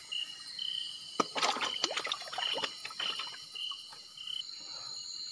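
Night insects: a cricket chirping in short repeated pulses about twice a second over a steady high buzz, the chirping stopping about four seconds in. Some rustling and clicks from handling come in the middle.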